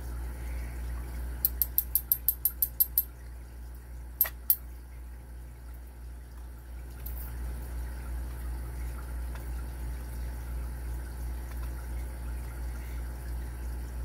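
Small metal parts of a padlock core clicking as its pin stacks and springs are taken out by hand: a quick run of about ten light, high ticks, then two more a moment later, over a steady low hum.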